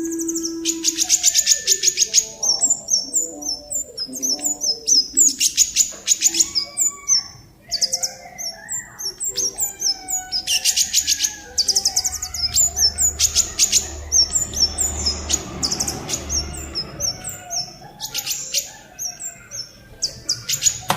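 A songbird singing: repeated short, high chirps broken by rapid trills of a second or so, several times over.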